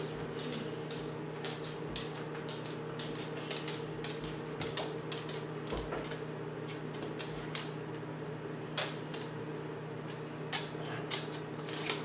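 Microwave oven running with a steady hum while heating a bar of Ivory soap, with many soft irregular clicks and crackles over it.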